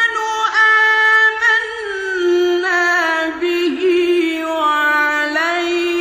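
Male Quran reciter's voice in the melodic mujawwad style, holding long high drawn-out notes with slides and ornaments. The pitch steps down about two seconds in and turns upward again near the end.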